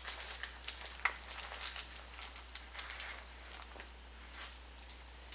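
Game dice clicking against each other as a hand rummages in a cloth dice bag to draw some out, with cloth rustling. The clicks come thick for about three seconds, then thin out to a few.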